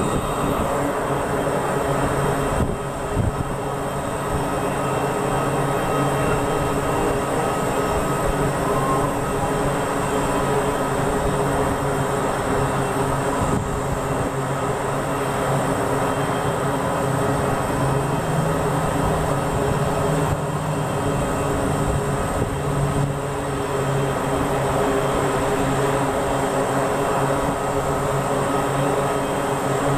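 Aircraft engines running: a steady, loud drone with a few held tones.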